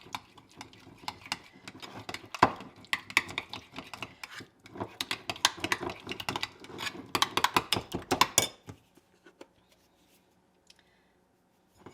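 A spoon stirring Greek yogurt and syrup in a bowl: quick, irregular clinks and scrapes of the spoon against the bowl that stop about three quarters of the way through.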